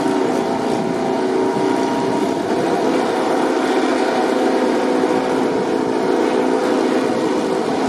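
MotoGP racing motorcycle engine running steadily at an even idle, holding several pitches without revving up or down.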